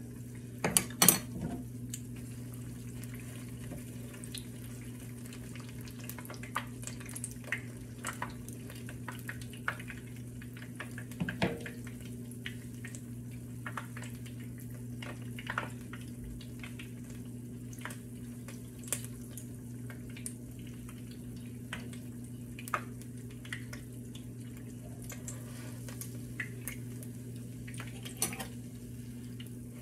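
Conch fritter frying in shallow oil in a pan: scattered pops and crackles of the hot oil at irregular intervals over a steady low hum. About a second in, a few louder clicks of a fork against the pan.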